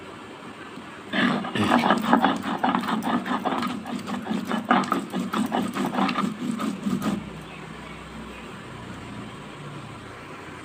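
Stone roller (nora) grinding a wet spice paste on a flat stone slab (shil): a rhythmic stone-on-stone scraping and knocking that starts about a second in and stops about seven seconds in.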